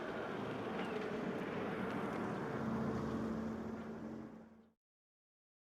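Car driving: steady road and engine noise with a faint steady hum, fading out about four and a half seconds in, then silence.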